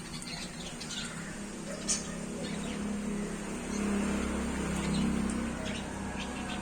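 Budgerigars chirping and chattering, scattered short high calls over a steady low hum.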